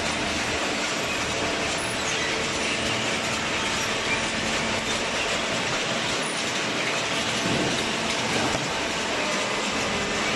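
Steady machinery running noise with a few faint humming tones.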